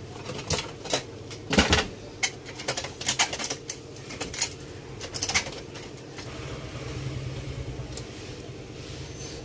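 Knocks and clinks of a glass-top gas stove's metal frame and burner parts being handled and set down, a quick cluster of sharp strikes through the first half, the loudest about a second and a half in, over a steady low hum.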